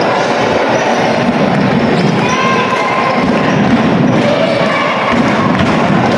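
Basketball game in progress on a court: the ball bouncing over a steady din of crowd voices and shouts.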